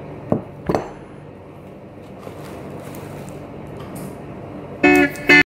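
Two sharp clicks in the first second from a plastic food container and its lid being handled, over a steady kitchen hum. Near the end, two loud, short pitched sounds.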